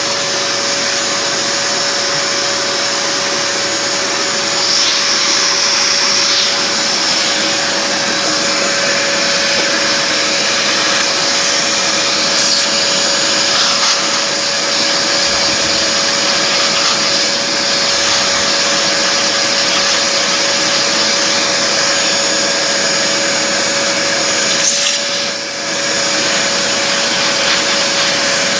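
Simplicity Sport bagged hand vacuum running steadily, a steady whine over the rush of air, as its brush tool works over fabric picking up pet hair. The sound dips briefly about 25 seconds in.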